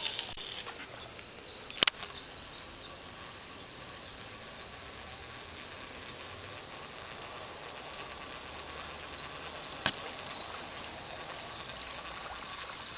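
A steady, high-pitched chorus of insects shrilling without a break. Two short sharp clicks stand out, about two seconds in and again near ten seconds.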